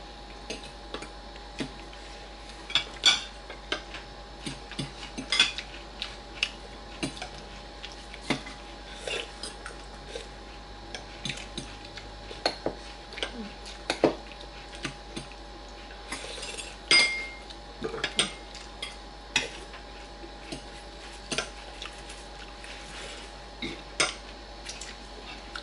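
Metal forks and spoons clinking and scraping against plates and bowls during a meal: irregular sharp clinks, a few louder ones standing out, over a faint steady hum.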